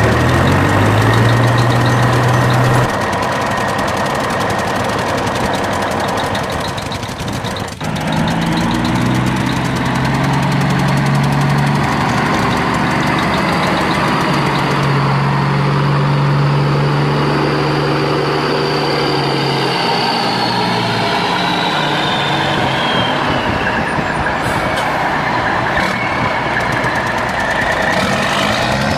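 Heavy vehicle engine running, its pitch shifting up and down, with a brief dip about seven seconds in and a high whine that falls in pitch about two thirds of the way through.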